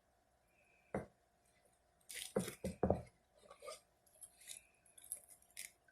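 Light clicks and knocks of small objects being handled: a single tap about a second in, a cluster of louder knocks between two and three seconds, then a few faint ticks.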